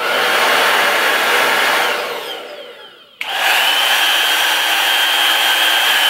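Two hair dryers run on high one after the other, a CHI Pro and a Dyson-lookalike Amazon dryer. The first blows a steady rush of air for about two seconds and then winds down. The second switches on abruptly about three seconds in, a rush of air with a steady high whine over it. Of the two, the CHI has the higher, ringing pitch and the Amazon dryer the lower rumble.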